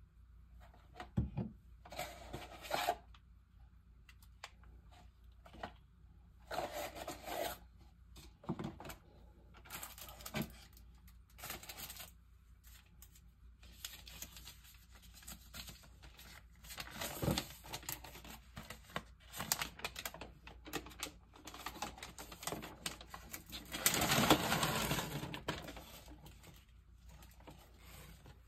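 Small objects being handled at close range: irregular rustling and scraping with a few sharp taps or clicks, the longest rustle near the end.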